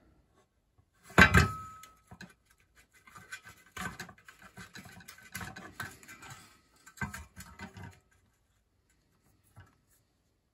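Hands working on a toaster's metal end panel and switch, pulling off wire connectors: a sharp clank about a second in with a brief ring, then scattered light clicks and scrapes, with a knock near seven seconds.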